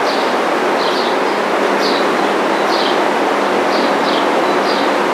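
Dairy barn ambience: a steady, loud rushing of ventilation fans, with a small bird giving short falling chirps, often in pairs, about once a second.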